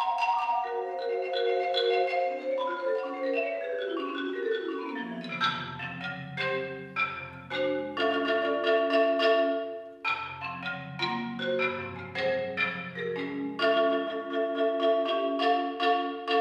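Concert marimba played solo with mallets: quick struck notes and chords that ring briefly. About five seconds in the line drops into the instrument's deep low register, and there is a short break near the middle.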